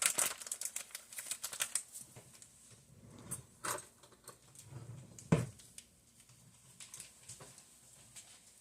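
A quick run of light clicks and taps from kitchen handling, thinning out to scattered taps, with one louder knock about five seconds in.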